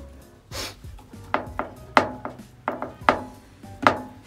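Background music: a run of sharp-struck notes that ring out, over a steady low tone.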